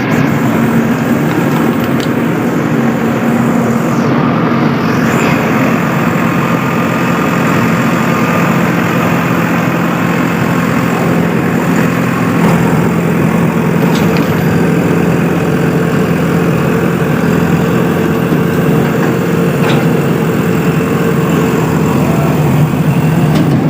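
Heavy diesel engine running steadily, its note dropping a little about halfway through.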